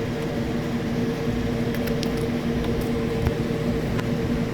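Steady fan hum with a low droning tone, and a few faint light clicks and taps scattered through it.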